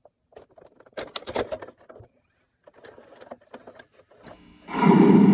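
A VCR's tape mechanism clicking and clattering in short spells as a cassette loads. Near the end a loud steady hum sets in as playback starts.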